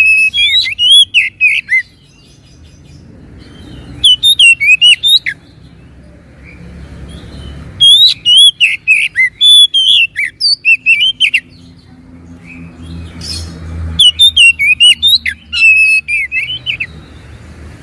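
Oriental magpie-robin (kacer) singing: four bursts of rapid, varied whistled and chattering notes, each lasting from about one to three seconds, separated by pauses.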